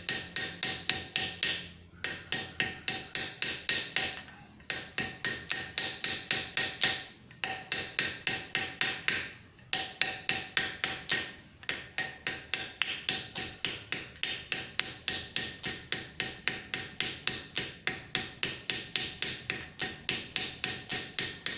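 A small 4-ounce ball-peen hammer tapping lightly and rapidly on an annealed .50 BMG brass cartridge case held on an anvil horn, about four or five taps a second, each with a light metallic ring. There are brief pauses every couple of seconds over the first half, while the case is turned. The gentle blows drive the brass in to shrink its diameter where the neck meets the body; harder blows would collapse the case.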